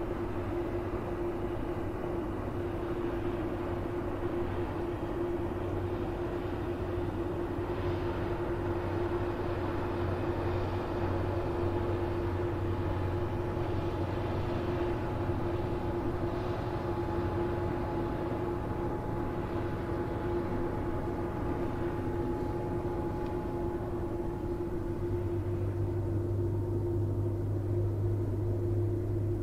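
Ship diesel engines droning steadily across the water, a constant hum over a low rumble. The rumble grows stronger near the end.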